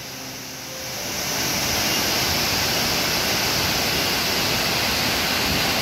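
Large waterfall cascading down a rock face: a steady rush of falling water that swells over the first two seconds, then holds.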